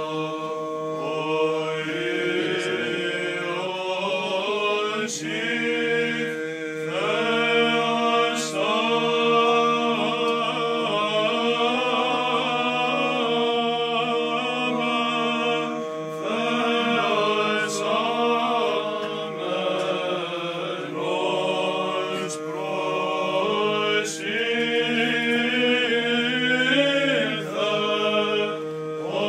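A small group of men chanting Byzantine Orthodox hymns a cappella, the melody moving over a steady held low drone note (the ison).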